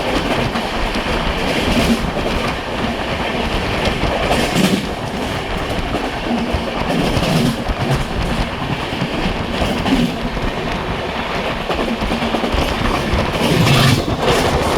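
Express passenger train running at speed: a continuous rumble with wheels ticking over the rail joints, a little louder near the end.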